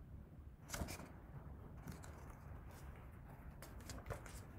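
A few faint clicks and rustles from a hardcover picture book being held and handled, over a low room hum.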